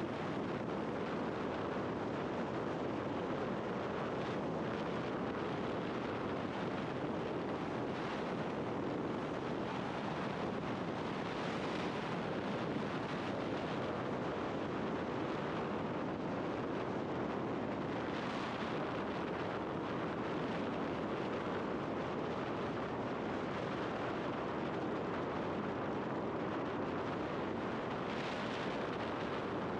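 Steady wind rush on a helmet-mounted microphone mixed with road noise from a scooter cruising at a constant speed, with a few brief swells of hiss.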